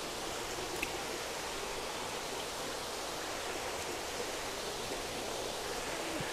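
Steady rush of water running through the tanks of a recirculating fish-hatchery system, with a small tick a little under a second in.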